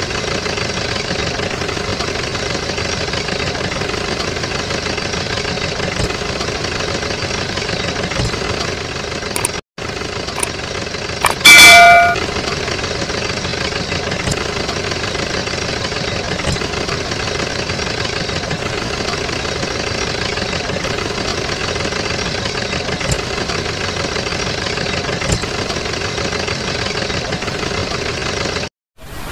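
A steady engine sound running without change. About eleven and a half seconds in, a brief, loud ringing tone, like a horn or bell, cuts through.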